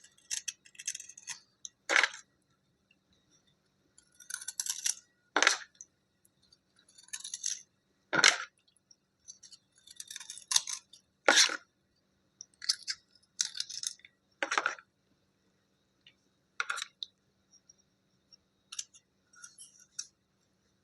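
Hard slate pencil pieces being scraped clean by hand: short bursts of high, scratchy scraping, broken by sharp clicks as a hard piece knocks against a hard surface, about six times.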